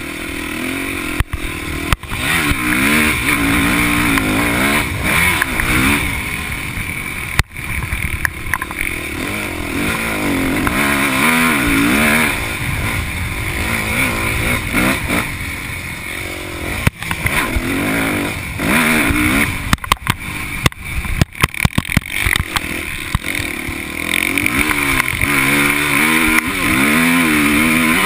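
Yamaha motocross bike engine revving up and down as it is ridden hard, heard onboard from the rider's chest. There is a cluster of sharp knocks and dropouts about twenty seconds in.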